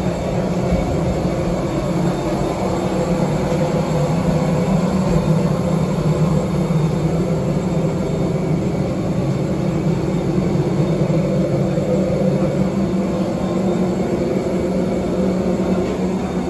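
Steady, loud mechanical drone of airport apron machinery, with a low hum and no break or change in level.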